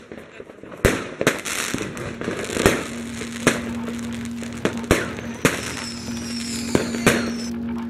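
Fireworks going off: a rapid, irregular series of about ten sharp bangs from aerial shells bursting overhead.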